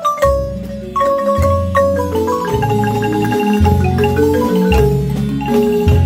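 Guatemalan marimba ensemble playing a lively melody, several players striking the wooden bars with mallets, many notes rolled with fast repeated strokes, over low bass notes from a double bass.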